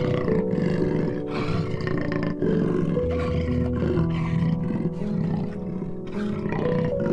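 A big cat's repeated rough roaring calls over soft background music with long held notes.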